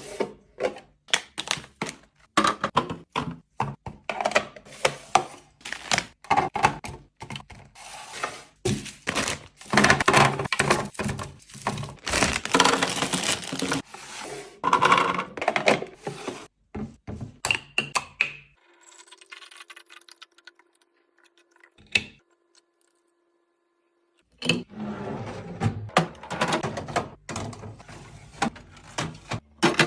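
Rapid clicks, taps and knocks of containers, jars and packaging being handled and set down while a fridge is restocked. About 18 seconds in it drops to a faint steady hum with a single click, and the knocking starts again around 24 seconds.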